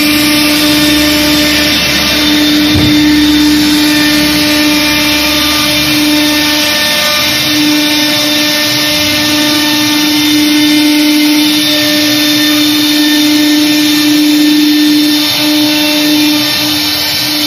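Air-cooled spindle of a CNC router running at a steady pitch while its bit routes grooves into an MDF board, with the hiss of cutting beneath it. The tone dips briefly twice.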